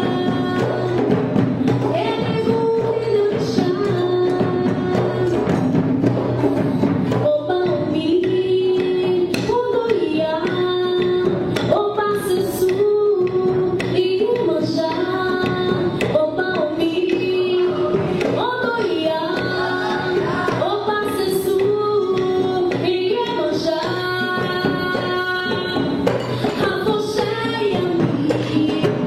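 Music: a melodic voice or lead line that bends in pitch, over a steady low note and light percussion.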